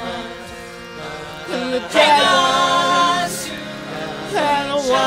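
Voices singing a song, holding long wavering notes over a steady low drone, with a louder phrase coming in about two seconds in.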